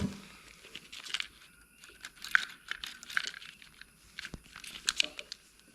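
Irregular small clicks, taps and rustles of hand work on a motorcycle clutch: the clutch plate being pushed down and its bolts started by hand. A few sharper clicks stand out about two and a half and five seconds in.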